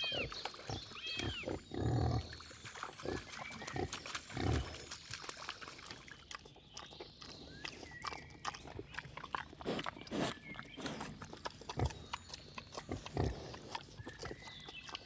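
Wild boar grunting in short low grunts, loudest in the first few seconds and recurring later, among many small clicks and rustles. Birds chirp faintly now and then.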